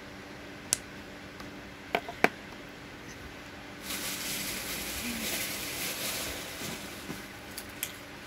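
Three small plastic clicks as a lip balm tube is capped and set down, followed by a few seconds of crinkly plastic wrapping rustling as items are handled.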